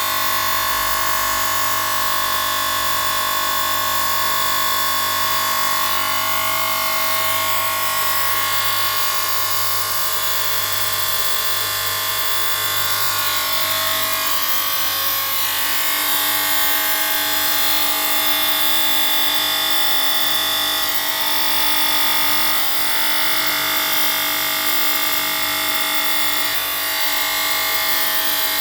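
A small electric rotary tool running steadily, its whine shifting in pitch now and then, typical of drilling or grinding stone for a necklace.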